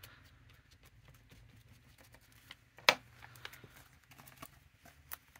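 Quiet rustling and light tapping of hands handling fabric, lace and paper scraps on a paper-covered tabletop, with one sharp tap near the middle.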